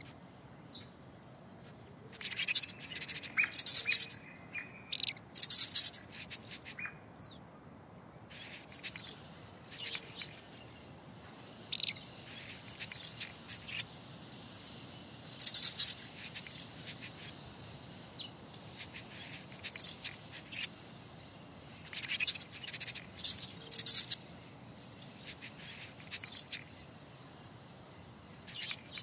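Short bursts of rapid, very high-pitched chirping squeaks, coming every second or two.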